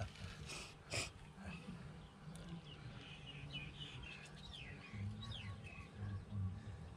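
Small birds chirping, with a run of short falling calls in the middle, over a faint low background rumble. Two sharp clicks come about half a second and a second in.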